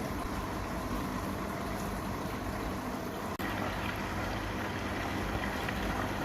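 Small paludarium waterfall: water trickling and splashing steadily, with a brief break about three and a half seconds in.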